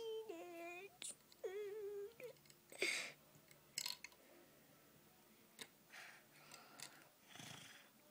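A child's voice making wordless play sound effects: two high, wavering, wail-like tones in the first two seconds, then breathy hissing bursts, with a few light clicks of plastic Lego pieces being handled.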